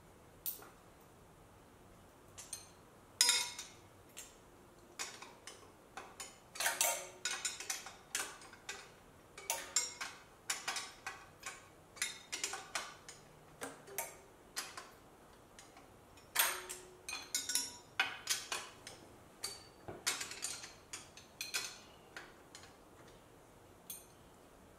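Metal hand tools clicking and clinking against the 2JZ engine's turbo and exhaust manifold hardware, in irregular clusters of short, sharp ticks.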